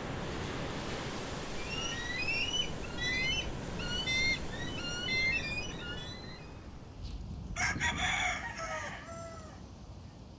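Small birds chirping in quick short notes over a steady background rush, then a rooster crows once, about seven and a half seconds in, its call falling in pitch at the end.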